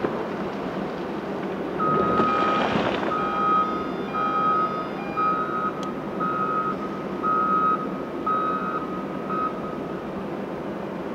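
Caterpillar 988K XE wheel loader reversing, its backup alarm beeping about once a second over the steady running of its diesel engine. A short, loud rush of noise comes about two seconds in, as the beeping starts.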